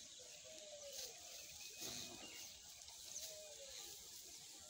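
Faint outdoor rural ambience with a few brief, distant bird calls.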